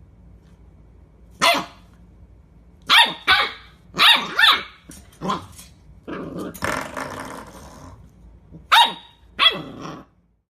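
A dog barking in short, separate barks, about eight of them, with a longer rough, noisy stretch a little past the middle.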